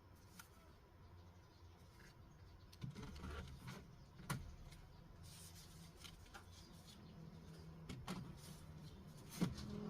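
Laptop parts and tools being handled: a few sharp clicks and light knocks, spread out, over a low steady hum.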